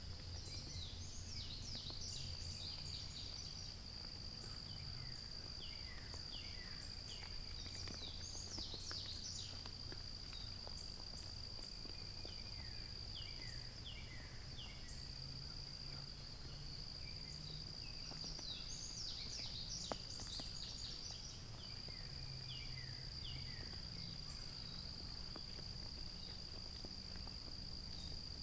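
Evening chorus of insects: a steady high-pitched drone that runs on almost without a break, with birds chirping in short clustered bursts over it and a faint low hum underneath.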